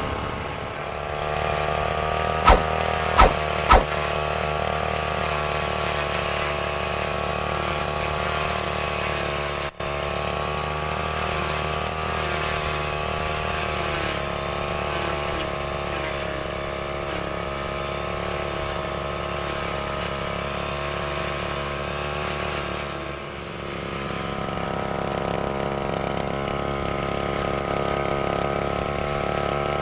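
STIHL FR 3001 brush cutter engine running steadily at an even speed, with three sharp clicks a few seconds in. Its level drops briefly about three-quarters of the way through, then it runs on at a slightly higher note.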